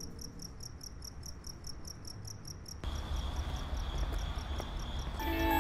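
Crickets chirping in a fast, even rhythm, about five chirps a second. About three seconds in, a steady high whine and a low rumble come in under the chirps.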